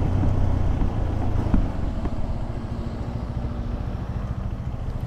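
KTM 390 Adventure's single-cylinder engine running as the motorcycle is ridden, with road and wind noise, gradually getting quieter. A brief knock about a second and a half in.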